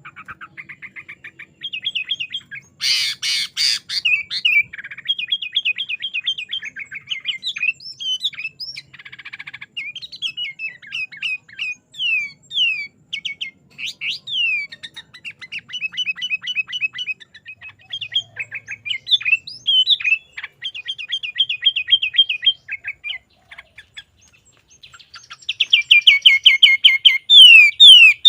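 Sooty-headed bulbul singing a long, varied song of rapid trills and quick falling whistled notes, with a harsh buzzy burst about three seconds in. The loudest and fastest run of falling notes comes near the end.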